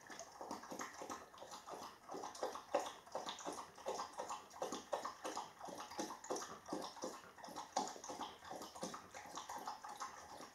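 Faint rhythmic sounds from a dog out of sight, about three short strokes a second.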